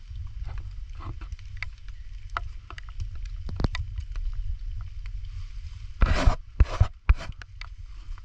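Handling noise as a live mud crab's claws and legs are bound with a thin tying strip: scattered ticks and scrapes, with two loud rustling bursts about six seconds in. Under it run light rain ticking and a steady low wind rumble on the microphone.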